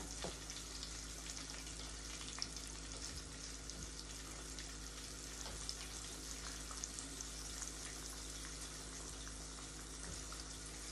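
Floured chicken wings deep-frying in a pot of hot oil: a steady sizzle with fine crackles over a low steady hum.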